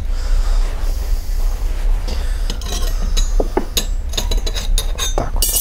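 Metal clutch parts from a Harley-Davidson Evolution (steel and friction plates, spring, pressure plate) clinking and knocking against each other as they are handled, a scattering of clicks in the second half with a sharper clink near the end, over a steady low hum.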